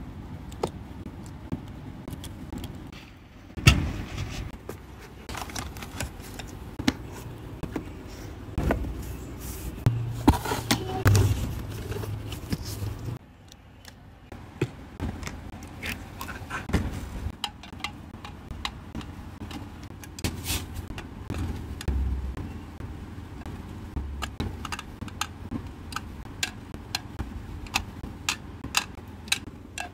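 Metal tweezers handling miniature doll accessories: irregular small clicks, taps and scrapes as tiny jewelry and plastic doll shoes are set onto display stands and into an acrylic shoe rack, over a low steady hum.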